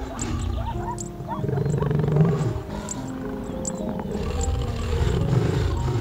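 Lion growling over background music, with low rumbling growls loudest about two seconds in and rising again near the end.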